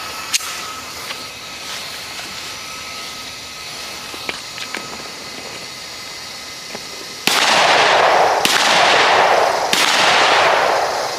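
Three pistol shots from a Smith & Wesson handgun, about a second apart near the end, each loud with a long echoing tail. Before them there is only quiet background with a few faint clicks.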